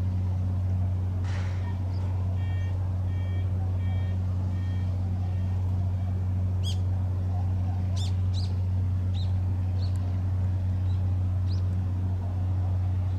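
Leonardo AW139 helicopter running on the ground, its twin turboshaft engines and turning rotors making a steady low drone. About two seconds in, a run of about six short, evenly spaced electronic beeps sounds over it, followed by scattered short high chirps.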